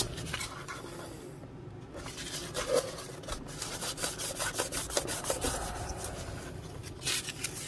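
A cloth or paper towel, likely wet with alcohol, wiping and scrubbing excess epoxy off a carbon fiber battery tray and the wood around it, in irregular rubbing strokes.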